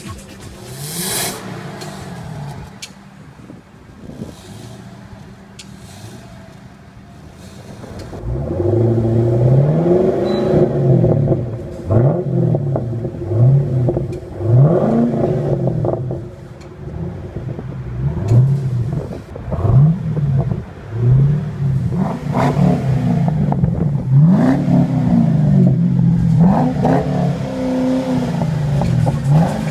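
2012 Chevrolet Camaro SS's 6.2-litre V8 exhaust idling at first, then revved repeatedly from about eight seconds in, each blip rising and falling in pitch.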